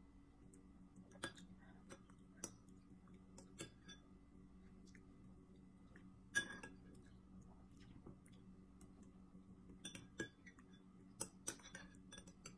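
Metal spoon clinking against a glass bowl and plate: a dozen or so scattered light clinks, the loudest about six seconds in, over a faint steady low hum.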